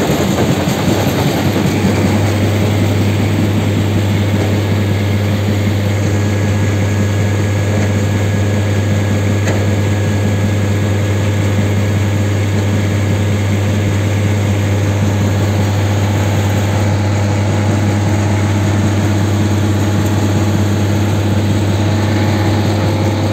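Mobile rubble crusher running: its engine and crushing and conveyor machinery make a loud, steady low hum with a constant rattle, the hum settling in about two seconds in.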